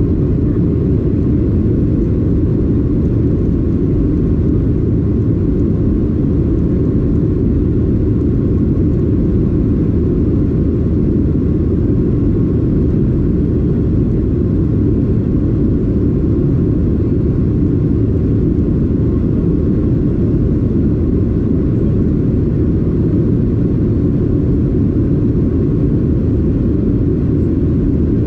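Steady low rumble inside the cabin of a Boeing 737-800 with CFM56-7B engines: engine and airflow noise, unchanging in level and pitch.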